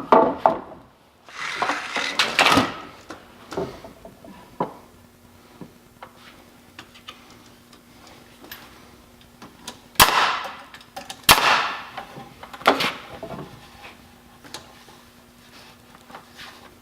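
Wooden boards being handled and fitted into a workbench frame: knocking, scraping and clattering, with three sharp knocks between about ten and thirteen seconds in.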